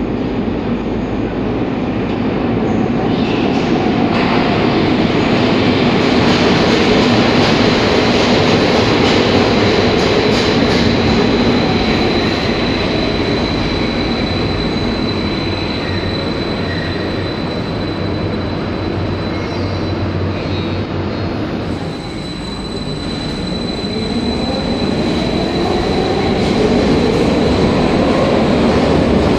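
Soviet-built 81-717/714 metro train running along the platform with a dense rumble of wheels and motors and a thin high squeal held through most of it. About three-quarters of the way in the noise dips briefly, then a whine rises steadily in pitch as the train gathers speed.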